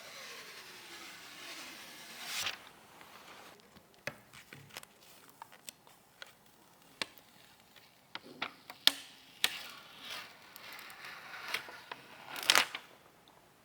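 Close-up handling of PC components and their packaging: a soft sliding rustle at first, then a series of sharp clicks and taps with scraping and rustling between them.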